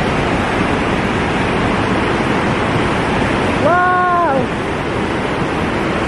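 Waterfall rushing steadily. A little past halfway a person's voice sounds one short held note that falls away at the end.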